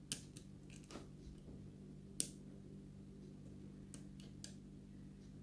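Scattered light clicks from a lock pick working the pins of a pin-tumbler lock under tension: about seven short ticks, the sharpest a little past two seconds in. A faint steady hum runs underneath.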